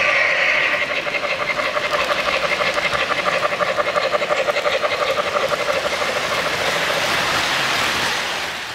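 O-scale three-rail model passenger train rolling along the layout track, its wheels making a fast, even clicking over the rail joints as the cars pass. A steady higher sound stops about half a second in, and the clicking fades away near the end.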